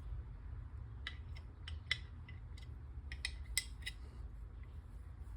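A series of light, irregular clicks and taps from small parts and packaging being handled while unpacking a soldering station kit, over a low steady hum.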